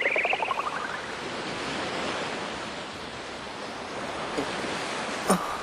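Ocean waves washing steadily on a rocky shore, with a bird's high wavering cry in the first second.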